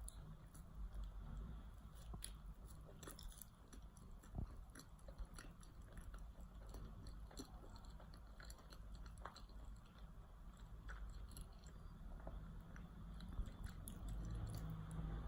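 A person chewing a mouthful of Krispy Kreme doughnut: soft, wet mouth sounds with scattered small clicks and crackles.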